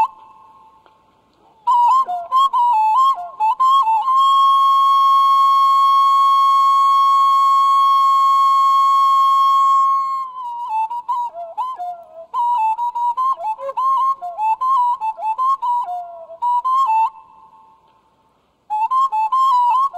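Background music: a solo flute playing a slow melody of bending, ornamented notes. It holds one long note for about six seconds in the middle and breaks off briefly twice, near the start and near the end.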